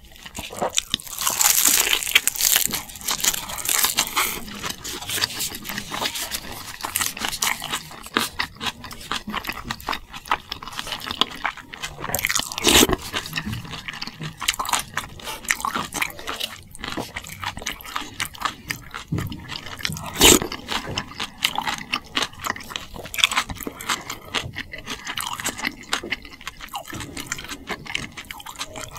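A person chewing and crunching food in a long run of irregular bites, with a few louder crunches along the way.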